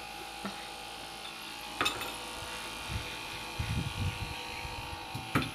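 Steady electric hum at two fixed pitches, with a sharp click about two seconds in and a few soft, low knocks near the end.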